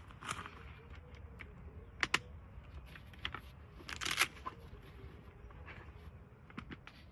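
Camping gear being handled: scattered clicks and rustling, with two sharp clicks about two seconds in and a longer rustle about four seconds in, over a low steady rumble.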